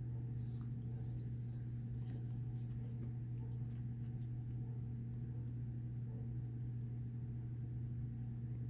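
Faint rustling and soft flicks of a glossy paper booklet's pages being handled and turned, mostly in the first few seconds, over a steady low hum.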